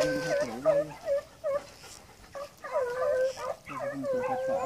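Hunting hounds baying out of sight in a run of long, drawn-out cries, typical of a pack giving tongue on a rabbit's scent.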